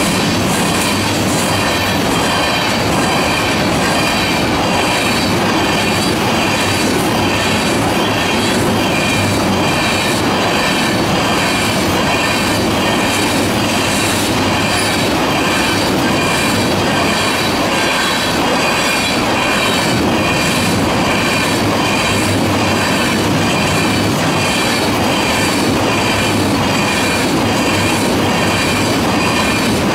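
Freight train of tank cars rolling past, with steel wheels running over the rails in a steady, continuous din.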